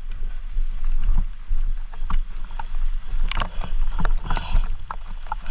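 Mountain bike ridden through a flooded, rain-soaked trail: a steady low rumble of wind and the bike on the microphone, with scattered splashes, rattles and knocks.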